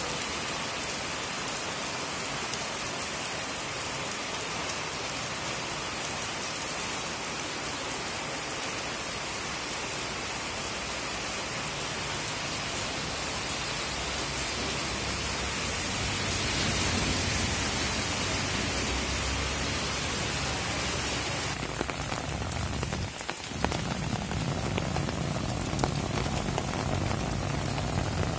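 Steady rain falling, an even hiss. About 22 seconds in the sound changes abruptly and dips for a moment, then carries a few sharper drop hits.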